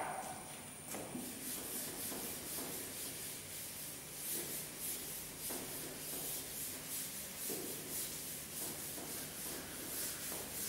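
Chalkboard eraser rubbed back and forth across a blackboard to wipe off chalk, in a long run of quick, even scrubbing strokes.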